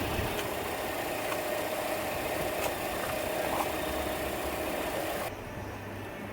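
A car engine idling steadily, with a hiss and a low hum, turning quieter about five seconds in.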